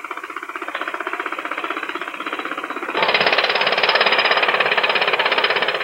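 Pneumatic hammer chiselling at a statue, a rapid rattling hammering that grows louder about three seconds in.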